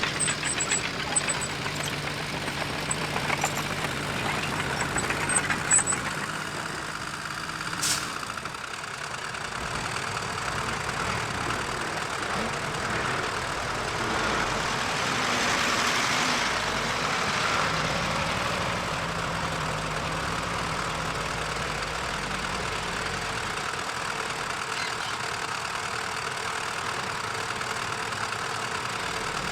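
Diesel engine of heavy earthmoving machinery running steadily, with scattered metallic clanks in the first few seconds and one sharp click about eight seconds in. The engine grows louder for a few seconds around the middle, then settles back.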